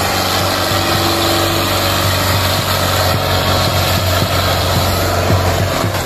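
Belarus tractor's diesel engine running steadily under heavy load as it drags a disc plough through soil.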